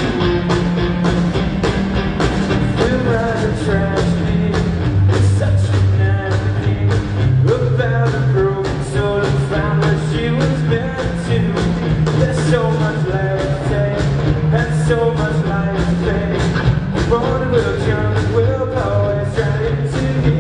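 Rock band playing live, electric guitars over a steady drum beat.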